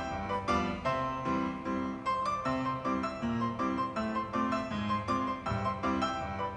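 Background piano music, a run of evenly paced notes over a moving bass line.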